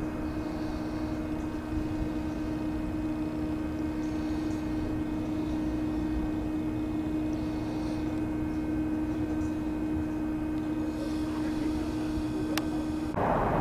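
Distant SEPTA electric multiple-unit commuter trains humming, a steady electric hum with several held tones over a low rumble. About 13 seconds in it gives way suddenly to a louder, even rushing noise.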